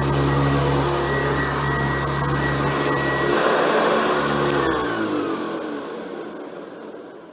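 Hoover Convertible U4349 upright vacuum's motor running steadily at speed, then switched off with a click about four and a half seconds in, its motor and fan winding down with a falling pitch as the sound fades away.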